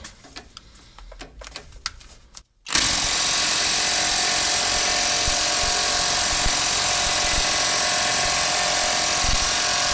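A 3/8-inch power impact wrench hammering steadily as it drives a ball joint press to force out a twin I-beam pivot arm bushing; the small impact is struggling under the load. It starts suddenly about two and a half seconds in, after a few faint clicks.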